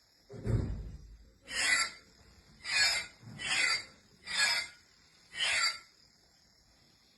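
Toy lightsaber's built-in electronic sound effects: a low burst, then five short swooshes with a wavering pitch, about a second apart.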